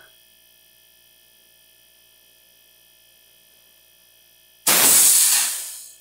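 Low, steady hum of a refrigerator compressor running. About four and a half seconds in comes a sudden loud hiss of compressed air as the finger is lifted from the open copper line, tailing off over about a second. This is a pressure flush of a clogged refrigeration system driven by its own compressor, with only air coming out.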